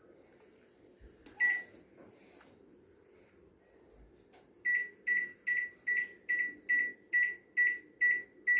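Convection oven's electronic control panel being programmed for convection baking: a few faint button clicks and a single high beep, then from about halfway a steady run of short, identical high beeps, a little over two a second.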